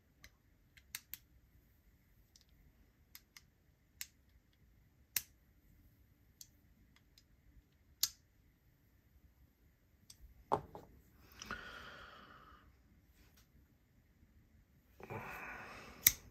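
Small metal clicks and ticks from a driver bit and a Wingman EDC Mach 3 folding knife being handled during reassembly, with a sharp click about ten and a half seconds in and the loudest near the end. Two short scraping rustles come about eleven seconds and fifteen seconds in.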